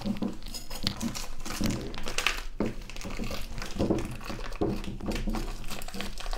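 Frozen kefir's packaging crinkling and crackling as it is handled and peeled open, in irregular bursts.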